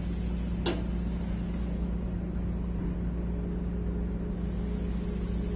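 Steady low machine rumble, like an engine running, with one sharp click a little under a second in.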